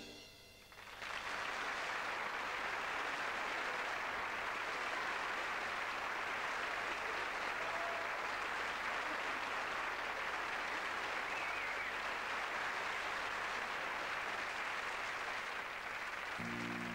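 Studio audience applauding, starting about a second in and holding steady. Music starts up again just before the end.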